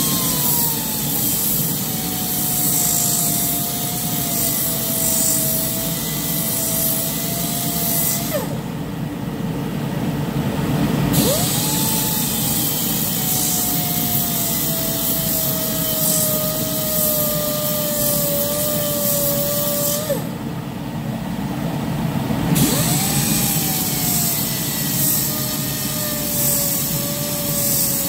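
Belt file sander grinding down the heads of steel spoke nipples in a motorcycle wire-spoke rim, a steady hiss over a motor whine that slowly drops in pitch as it bears on the metal. Twice it stops for a couple of seconds and spins back up with a rising whine.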